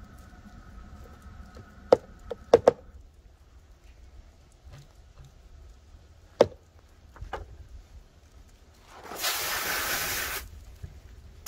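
Several sharp knocks on the plywood cutting table while a salmon fillet is handled. Near the end, a water spray hisses for about a second and a half as the fillet is rinsed.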